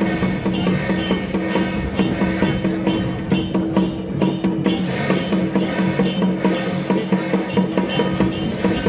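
Percussion-led music: rapid drum and cymbal strikes, several a second, over steady held tones.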